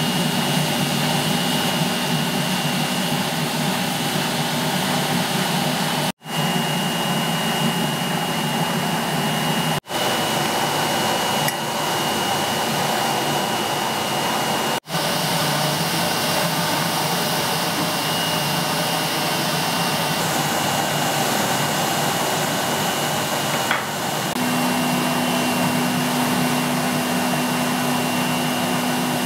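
Steady roar of a gas-fired glory hole furnace and its burner blower, with a thin steady whistle above it. It cuts out for a moment three times, and a low hum joins near the end.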